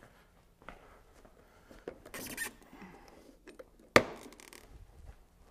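Handling of white vinyl pergola parts: a few light clicks, a brief scrape about two seconds in, and one sharp knock of vinyl about four seconds in as a rafter block is worked out by hand.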